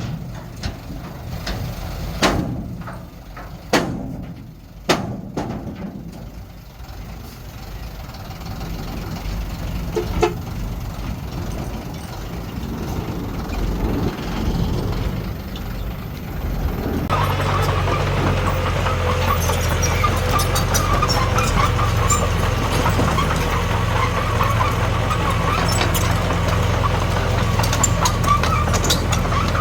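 Diesel engine of heavy earthmoving machinery running, with a few sharp knocks in the first part. About halfway through it becomes abruptly louder and steady.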